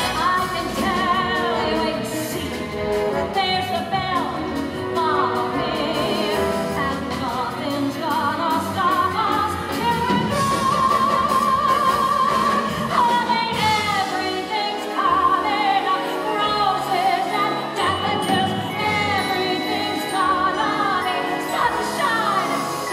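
Musical theatre singing with a live orchestra, bright and brassy, with a long wavering sung note about halfway through.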